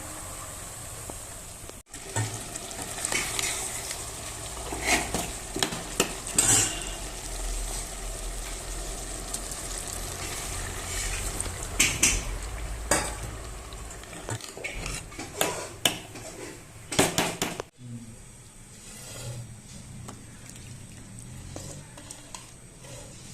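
Vegetables sizzling in a pan while they are stirred, with repeated clinks and scrapes of a spoon against the pan. The clinking thins out for the last few seconds.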